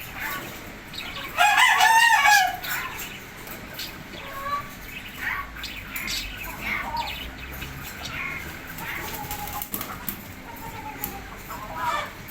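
Birds calling: one loud, drawn-out call with several stacked pitches lasting about a second, starting about a second and a half in, then scattered short calls and chirps.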